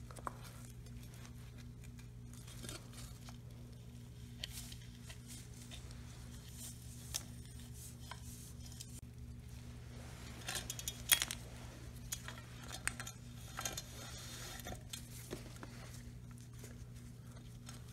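Light clicks and clatters of hands handling a small engine's recoil pull-starter: the plastic housing and pulley, then the rope being threaded through its T-handle, with a louder cluster of clicks about ten to eleven seconds in. A steady low hum runs underneath.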